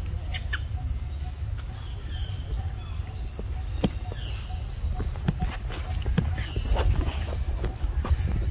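A bird's short, high chirping call, repeated about once a second, over a steady low wind rumble on the microphone. Scattered sharp clicks and rustles grow busier in the second half.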